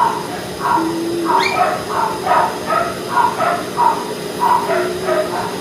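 Dogs barking repeatedly, about two barks a second.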